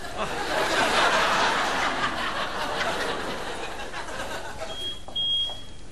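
Studio audience laughing: the laughter swells a moment in and dies away over the next few seconds. A short, high steady beep sounds near the end.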